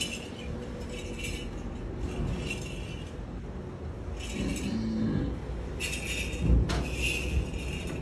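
Light metallic jingling and clinking in irregular short bursts, coming closer together near the end, with one sharp knock a little past the middle.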